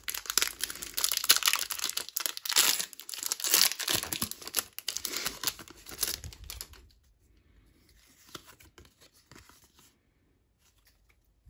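A Pokémon TCG booster pack's foil wrapper being torn open and crinkled, for about the first seven seconds. After that it falls nearly quiet, with a few faint clicks.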